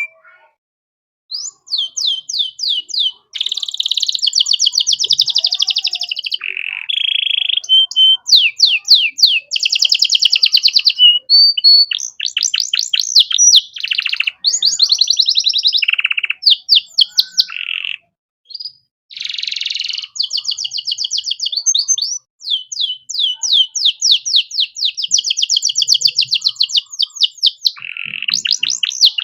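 Male canary singing a long, varied song of rapid trills and rolled phrases, fast repeated notes high in pitch, with brief pauses between phrases.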